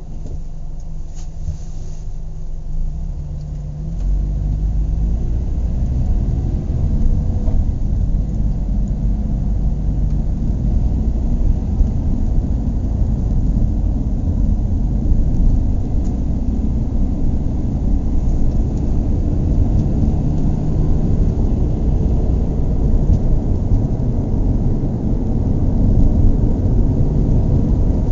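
Car engine accelerating about four seconds in, its pitch climbing, then running louder and steady as the car drives on at speed.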